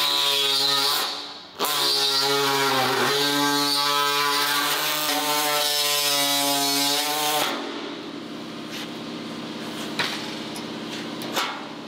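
Small pneumatic air drill running at high speed while drilling through automotive sheet metal, a steady whine that stops briefly about a second in, sags slightly in pitch as the bit bites, and cuts off after about seven and a half seconds. Quieter shop noise with a few light clicks follows.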